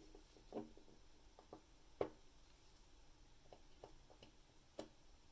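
Near silence broken by a few faint, scattered small clicks and taps from handling at a watchmaking bench, the sharpest about two seconds in.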